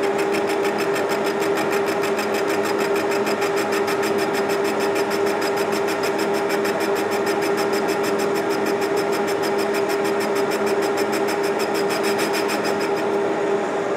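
Metal lathe running with a steady hum while a carbide turning tool takes a light cut on a cast grinder guard's hub, with a rapid regular ticking of about eight a second from the interrupted cut; the ticking stops near the end as the tool comes off the work.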